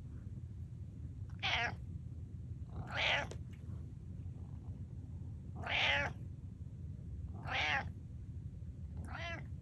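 Domestic cat meowing five times, short calls spaced one to three seconds apart.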